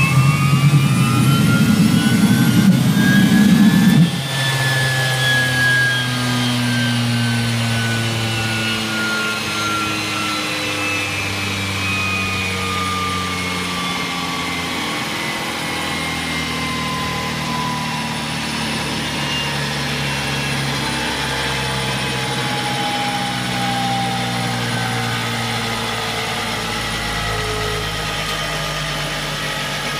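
Small gas turbine with a centrifugal compressor whining up in pitch, then at about four seconds the loud running noise cuts off and the turbine winds down with a long, slowly falling whine. This rundown is being checked for a rubbing noise at the end of rotation, a sign of play in the compressor shaft.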